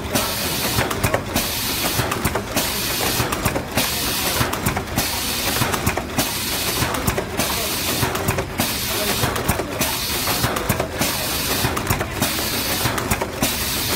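Carton glue-sealing packaging machine running: a steady hiss that drops out briefly about every 1.2 seconds, over continuous mechanical clatter.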